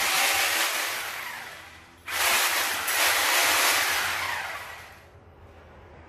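Two loud bursts of rushing, hissing noise, each starting suddenly and fading away over about two seconds.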